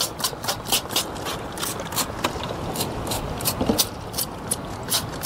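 Plastic trigger spray bottle squeezed over and over, a quick run of short spritzes, roughly four a second, spraying the inside of a plastic cooler.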